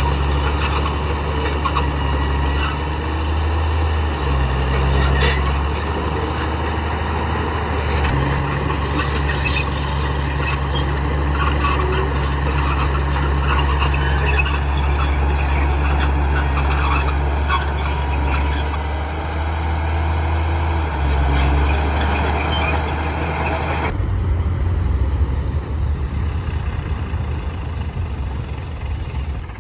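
Heavy diesel machine engine running under load, its note shifting up and down a few times, with metallic squeals and clanks over it. About 24 seconds in the sound changes abruptly: the squealing stops and a rougher, lower engine rumble is left.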